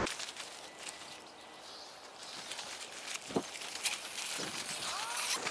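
Quiet outdoor ambience with scattered faint clicks and ticks, a short sharp sound about three seconds in, and a couple of brief chirp-like calls near the end.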